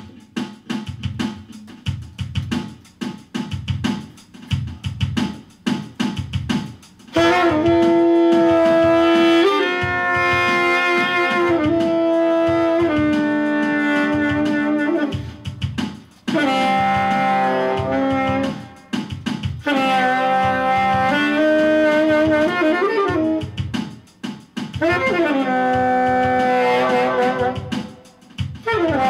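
Saxophone playing a jazz melody over a drum-kit groove. For about the first seven seconds only the drums are heard; then the sax comes in with long held notes in three phrases of several seconds each, some notes bending or sliding in pitch.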